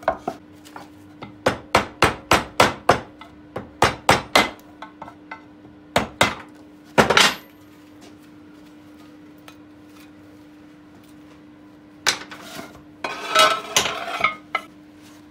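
Hammer knocking out the old crankshaft rear main seal from its housing: a quick run of sharp blows, about three a second, then a pause. Near the end comes a rattling clatter of metal parts. The seal is being replaced because it was leaking.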